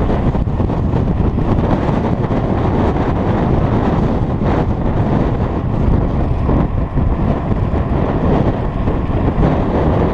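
Steady wind rush buffeting the microphone of a handlebar-mounted camera on a moving mountain bike, mixed with the rumble of tyres rolling over cracked asphalt.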